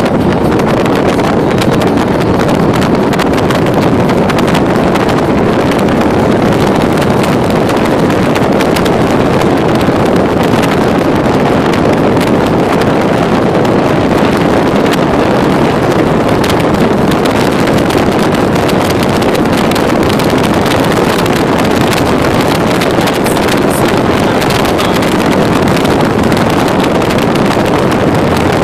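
Steady rush of wind on the microphone over road noise from a moving vehicle travelling at speed, loud and unchanging throughout.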